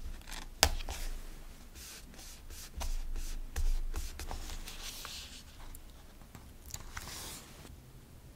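Metal tweezers tapping and clicking against a paper journal page as stickers are laid on, with one sharp click under a second in. A fingertip rubbing a sticker down onto the paper makes a soft scratchy hiss in the middle and again near the end.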